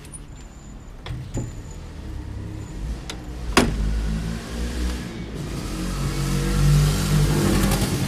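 Sharp metal clicks of long-handled bolt cutters biting and slipping on a bicycle lock chain, the loudest about three and a half seconds in. Under them a passing motor vehicle's engine rumble grows louder through the second half.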